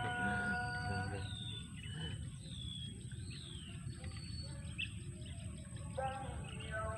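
Bird calling in a repeated high whistle that slides down in pitch, about once a second through the first few seconds, over a low steady background hum. Background music sounds at the start and again near the end.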